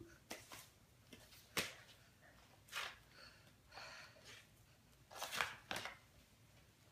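Large cardboard floor-puzzle pieces being handled and set down on a wooden floor: scattered soft taps and rustles, with a quick cluster of them about five seconds in.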